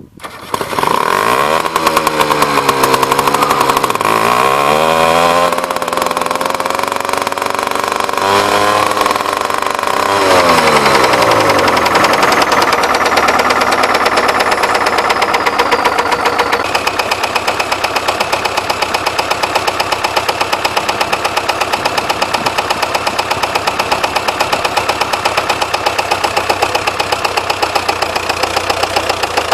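SMD-18 four-cylinder diesel of a DT-75 crawler tractor starting, revved up and down several times over the first dozen seconds, then running at a steady speed with an even, repeating knock. The owner suspects the knock comes from a connecting rod, at its upper or lower end.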